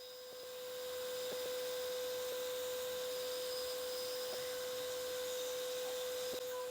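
A steady electrical hum: one mid-pitched tone with fainter overtones over a faint hiss, with a few faint ticks.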